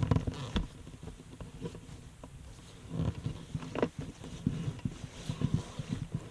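Footsteps scuffing and clicking irregularly, with wind rumbling on the microphone.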